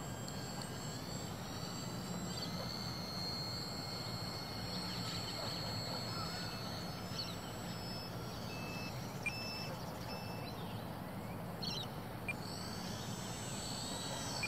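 Electric motor and propeller of a small foam RC plane whining on landing approach, over steady wind and outdoor noise; the whine swells near the end as the plane comes in close. A few short high beeps sound around the middle.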